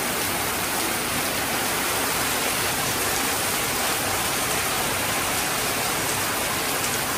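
Heavy rain downpour: a steady, dense hiss of rain falling, very strong and unchanging.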